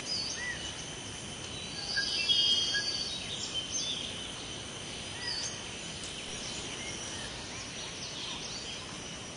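Outdoor ambience: a steady background hiss with birds chirping now and then, the calls busiest a couple of seconds in.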